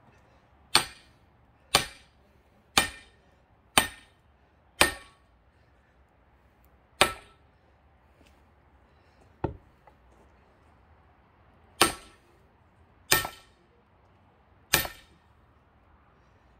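A hammer striking an axe head that is driven into a thick pine log to split it: sharp metal-on-metal blows, each with a short ring. About ten strikes, the first five about a second apart, then a pause, a lighter blow, and three more spaced-out blows.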